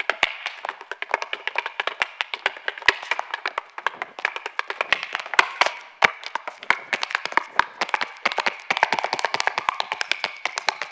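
Audience applauding: a dense, uneven patter of sharp individual claps.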